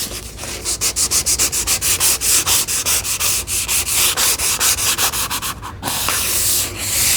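Hand sanding wood with 320-grit sandpaper: quick back-and-forth rubbing strokes, about five or six a second, with a longer smooth stroke near the end. The fine grit is the final smoothing of freshly eased, rounded edges.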